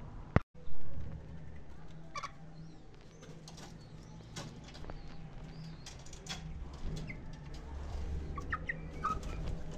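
Chickens in a coop making short clucks and calls among scattered clicks and scratching, with a brief loud knock just under a second in and a few short calls near the end. A low steady hum runs underneath.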